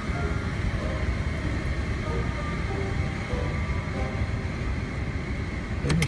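Steady low rumble of a car driving slowly, heard from inside the cabin, with a single sharp knock at the very end.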